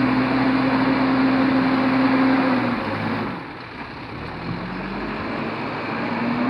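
JCB backhoe loader's diesel engine running at high revs, easing off a little under three seconds in, then revving back up toward the end.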